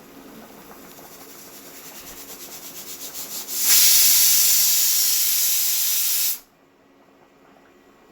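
Pressure cooker whistling: rapid puffs of steam grow louder for a few seconds, then a loud, steady jet of steam hisses for under three seconds and cuts off suddenly.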